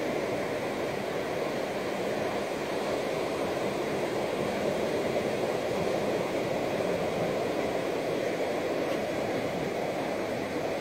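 Ocean surf breaking and washing up over a flat sandy beach, a steady wash of noise with no single wave standing out.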